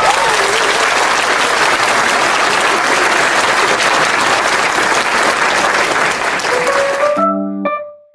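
Recorded applause, a dense steady clapping, that cuts off suddenly about seven seconds in. It gives way to the first bright, separate notes of a short musical jingle.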